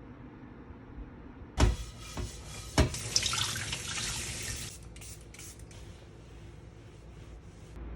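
Three sharp knocks, then water running and splashing for a couple of seconds before breaking into short spurts and stopping.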